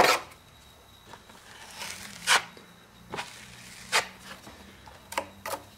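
Drywall knife scraping across set joint compound in short strokes, about six in all, knocking down high spots on a patch.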